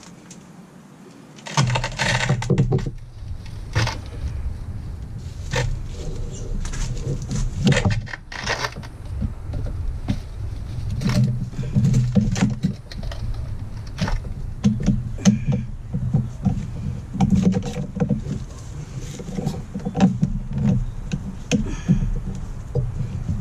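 Close handling noise of hands working rigid PVC pool pipe fittings and a stiff hose connection: many short clicks, knocks and scrapes over a low, uneven rumble that starts suddenly about a second and a half in.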